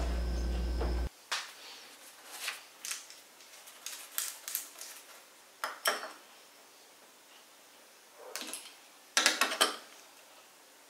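A steady low hum cuts off suddenly about a second in. Then come light metallic clicks and ticks of an adjustable wrench on a small brass nut set in a hardboard panel, with a louder run of clicks near the end.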